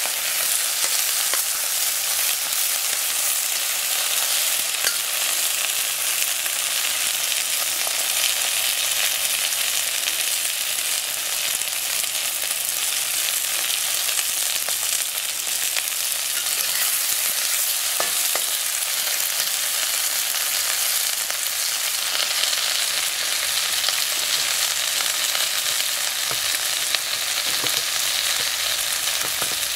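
Sliced peppers, tomatoes and sausage sizzling steadily in a hot wok while a metal spatula stirs them, with occasional light clicks of metal on the pan.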